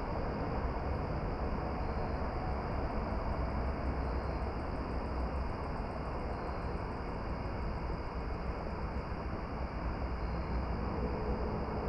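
Steady, unchanging rushing noise over a deep low rumble, with a faint steady hum in the middle range.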